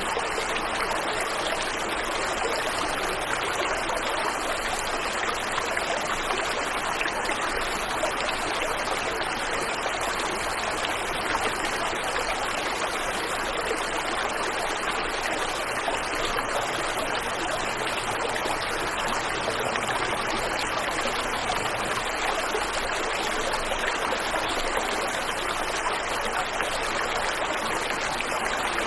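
Waterfall and river water rushing: a steady, even rush of falling and flowing water with no change in level.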